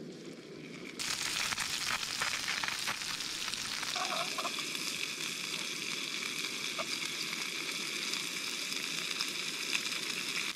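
Small redfin fillets frying in a little oil in a small pan over a canister gas stove: a steady sizzle that starts suddenly about a second in, with a few light clicks of a utensil stirring the fish.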